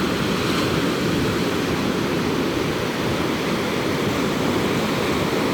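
Atlantic Ocean surf breaking on the beach: a steady, even rush of noise.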